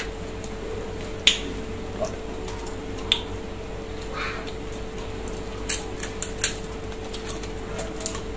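Scattered sharp clicks and cracks of steamed crab shells being broken and picked apart by hand while eating, about five in all, over a steady low hum.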